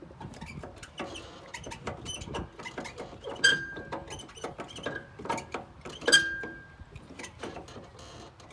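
Irregular metallic clicks and clunks from the riding mower's deck-height adjustment being worked, with two louder clanks about three and a half and six seconds in that ring briefly.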